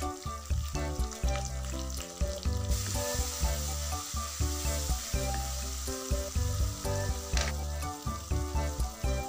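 Onion and tomato masala frying in oil in a wok, sizzling and being stirred with a spatula; the sizzle grows louder about three seconds in. Background music with a steady bass beat plays throughout.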